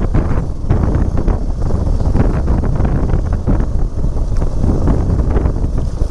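Loud wind buffeting the microphone: a dense, gusting low rumble with no steady tone, as when recording on the move in the open.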